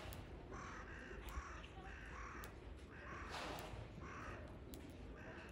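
Crows cawing: a run of short, harsh caws, about one or two a second, over faint outdoor background noise.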